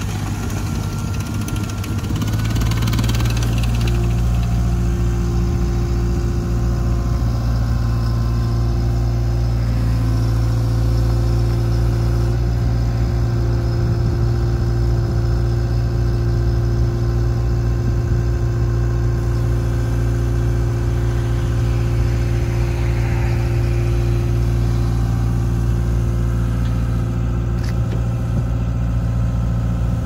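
2017 ASV RT-120 Forestry compact track loader's diesel engine running; it is throttled up about two seconds in and then holds steady at higher revs, with a steady whine over the engine as the loader drives and turns and raises its lift arms.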